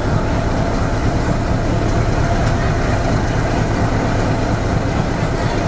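Steady low drone of a YDM-4 diesel locomotive engine, mixed with the rumble of metre-gauge passenger coaches, heard from an open coach window.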